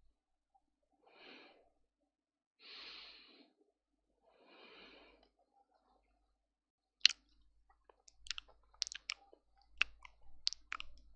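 A person breathing softly, three slow breaths. Then, from about seven seconds in, a series of sharp, irregular clicks or taps, the first the loudest.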